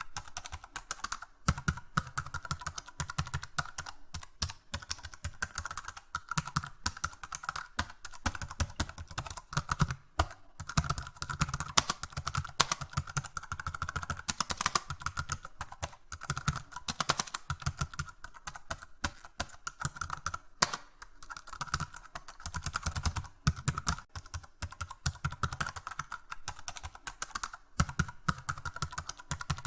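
Computer keyboard being typed on continuously, fast irregular key clicks with short pauses between bursts.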